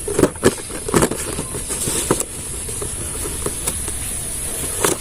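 Short knocks and clicks from an item being handled during an unboxing, clustered in the first second or so with another near the end, over a steady background noise.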